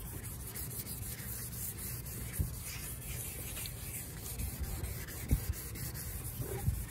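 1500-grit wet sandpaper rubbed by hand back and forth over a hazed plastic headlight lens of an Infiniti G37, a steady soft scuffing as the oxidised haze is sanded off. A few soft knocks sound along the way.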